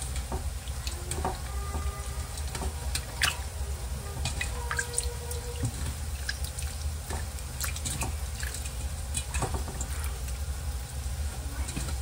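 Hands rinsing and squeezing pieces of soaked smoked herring in water in a stainless steel bowl: irregular splashing and dripping, with a steady low hum underneath.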